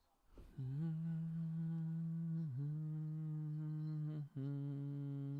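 A man humming long held notes at a steady pitch. The pitch dips briefly about halfway through, and the humming breaks off for a moment near the end before going on.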